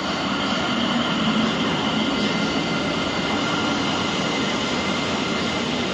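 PESA Gama SU160 diesel locomotive and its passenger coaches rolling past close by: a steady, loud rumble of engine and wheels, with a faint high whine above it.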